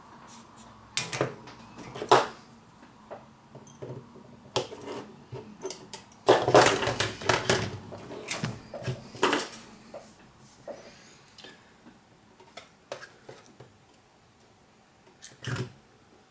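Handling sounds at a workbench: scattered clicks and knocks of hands, a soldering iron and other tools against a copper-wound 3D-printed plastic ring. There is a busier stretch of rattling and knocking about six to eight seconds in.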